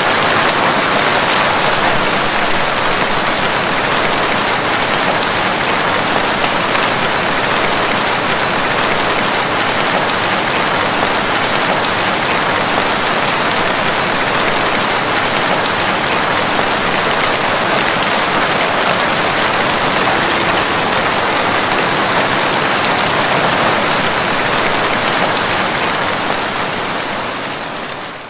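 Heavy rain pouring down in a steady, even hiss, fading out at the very end.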